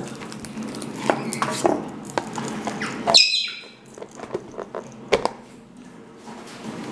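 African grey parrot pecking at rusks in a metal tray: scattered sharp clicks and taps of beak and crumbs. About three seconds in it gives one short, high-pitched squawk.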